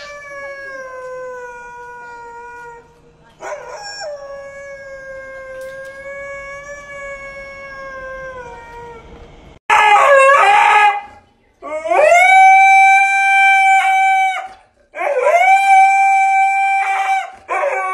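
Two long howls, each sliding slowly down in pitch, from a small white animal. About ten seconds in, a Siberian husky starts howling much louder: four drawn-out howls, each rising at the start and then held steady.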